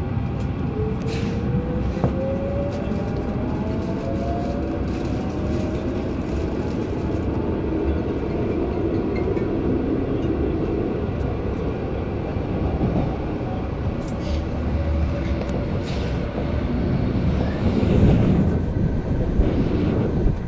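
RER A MI09 train heard from aboard, its traction motor whine rising steadily in pitch over the first several seconds as the train picks up speed. Under it runs a constant rumble of wheels on track, growing louder near the end.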